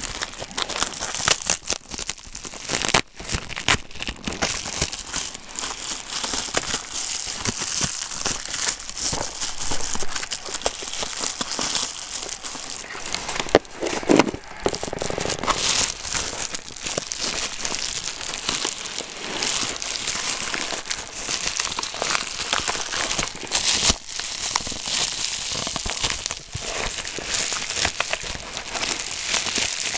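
Plastic packaging crinkling and crackling as it is handled and pulled open by hand, almost without pause, with scattered sharper crackles.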